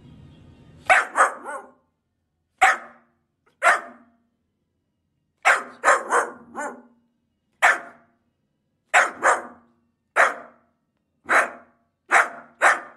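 A pit bull-type puppy barking: a string of short, high, sharp barks, singly or in quick twos and threes, with brief pauses between.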